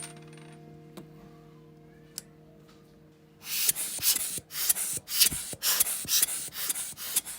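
Quick, repeated rubbing strokes, about three a second, from a lens part being scrubbed during disassembly cleaning. They start about halfway in, after soft background guitar music.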